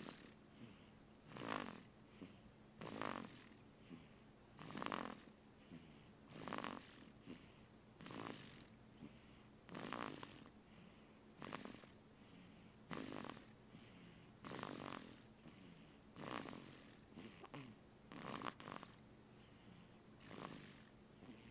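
Snoring: a steady run of snoring breaths, about one every one and a half to two seconds.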